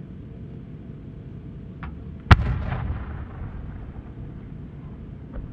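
A single sharp boom about two seconds in as an aerial firework shell is fired from its mortar, followed by a rumbling echo that dies away over about a second, over a steady low background rumble.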